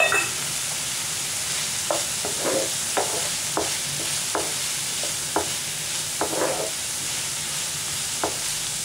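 Chopped onions, green chillies and curry leaves sizzling in oil in a non-stick pan with a steady hiss, while a wooden spatula stirs in freshly added coriander and mint. From about two seconds in, the spatula scrapes the pan in short strokes about once a second.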